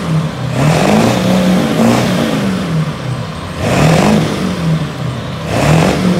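Ford Super Duty diesel pickup's engine free-revving through a side-exit exhaust: about three sharp blips of the throttle, the pitch climbing and falling back each time between idle.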